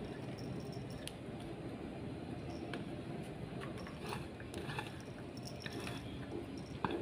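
Soft, wet squishing as chopped vegetables and soy pulp are pushed off a plate by hand into a plastic bowl of batter, with a few light clicks.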